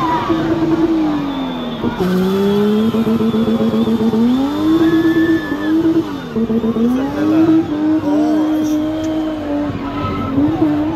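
BMW M20 straight-six engine held at high revs while a car spins, the engine note repeatedly dropping and climbing back as the throttle is worked, over tyre noise. The sound jumps abruptly about two seconds in.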